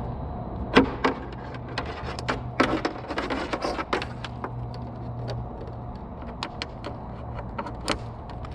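Irregular clicks, taps and rustling of a wiring harness in plastic loom being fed through a car's metal trunk-lid inner panel and snapped back into its clips, with a steady low hum underneath. The clicks cluster most densely a few seconds in.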